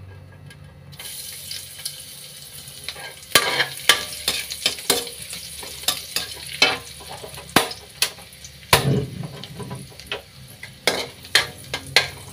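Chopped garlic frying in hot oil in a steel wok. A sizzle starts about a second in, and from a few seconds in a metal spatula scrapes and clacks against the wok as it is stirred.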